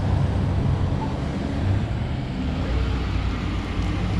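Wind rushing over a GoPro's microphone while riding a bicycle: a steady low rumble.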